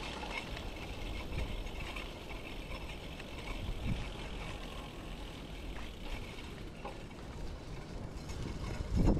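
Steady road and wind rumble from riding a bicycle along a street, picked up by a GoPro's microphone, with a louder rush near the end.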